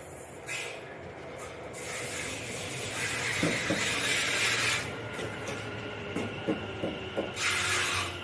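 Passenger train standing at the platform, letting out loud bursts of compressed-air hiss from its pneumatic system, with a run of sharp clicks and knocks in the second half.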